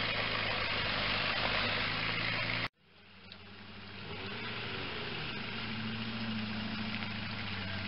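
Mitsubishi Shogun 4x4 engine running steadily under load as the vehicle works through deep mud. It cuts off abruptly about two and a half seconds in, and another 4x4's engine fades up and settles into a steady idle.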